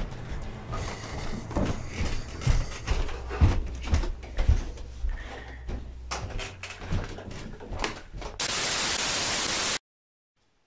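Footsteps on wooden stairs and floorboards, with scattered knocks and clicks. Near the end a loud, even hiss lasts about a second and a half and cuts off suddenly into silence.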